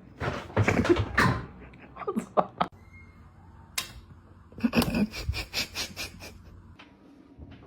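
Household clatter: a burst of knocks and rustling, a single sharp click, then a fast run of rattling clicks about two-thirds of the way through.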